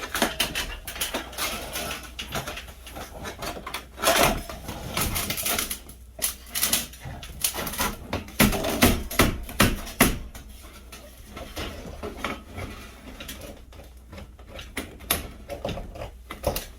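Irregular knocking, tapping and clattering of hand work on a wood stove's flue pipe, with louder clusters of knocks about four seconds in and again around eight to ten seconds.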